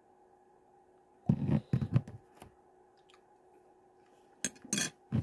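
Clinks and knocks of a spoon and a glass hot-sauce bottle being handled: a cluster of knocks and a heavier thump about a second and a half in, and another cluster of sharp clinks near the end.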